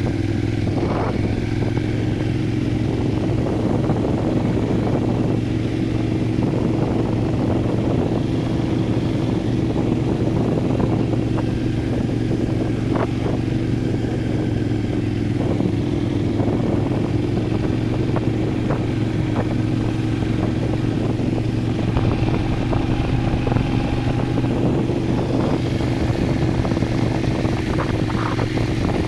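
Motorcycle engine running at a steady, even pitch, heard from the rider's seat while riding. A few short knocks and rattles sound along the way.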